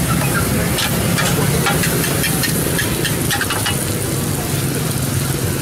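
Noodles sizzling on a large hot iron pan while metal spatulas stir and scrape them, with scattered short scraping clicks over a steady low hum.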